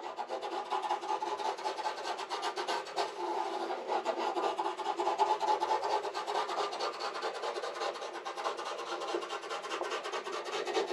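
Plywood being rasped by hand: a steady, fast, scratchy rubbing made of many short strokes.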